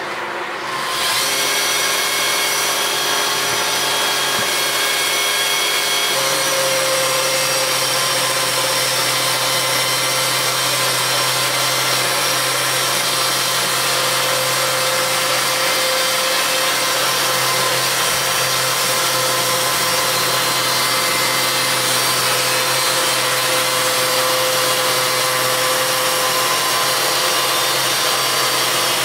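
Electric chainsaw mill with a ripping chain sawing lengthwise through a log on automatic feed: a steady motor hum and whine with the chain cutting. It gets louder about a second in and then runs on evenly.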